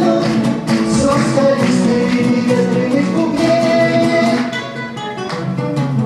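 Acoustic guitar strumming the closing bars of a bard-style song, with voices faintly singing along.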